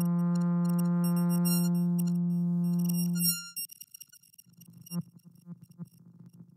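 Trombone holding one steady note for about three and a half seconds, run through a granular-synthesis patch that scatters short high clicks over it. Then the note stops and only faint, stuttering grain fragments of it are left.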